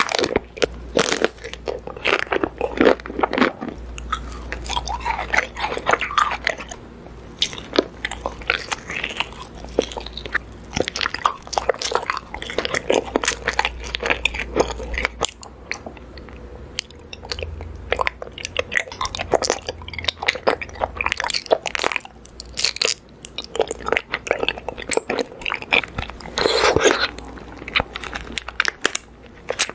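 Close-miked eating: crunchy bites and chewing of a pink ice cream bar, a dense run of sharp crackles and crunches, with a louder crunching spell near the end as a clear jelly is eaten.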